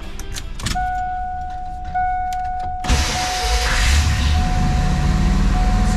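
Ford Bronco engine cranked by the starter, catching about three seconds in and then running at a high idle. A steady warning chime from the dash sounds from about a second in until near the end.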